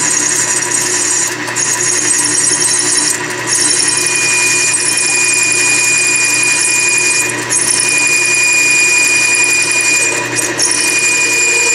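Logan lathe turning an aluminium rod while a radius forming tool is plunged straight into its end with the cross feed. About four seconds in a steady high-pitched squeal of tool chatter sets in, typical of a forming tool taking off a lot of material at once.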